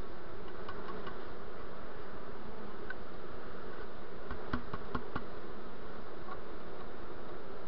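Honeybee afterswarm buzzing, a steady close hum from a dense mass of bees crawling into the hive. A few faint clicks come about three to five seconds in.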